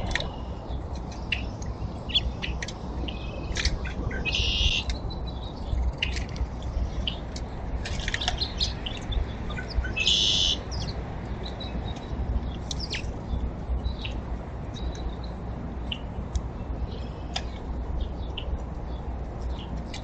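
Small songbirds chirping with many short, high calls, and a longer buzzy call about four seconds in and again about ten seconds in, over a steady low rumble.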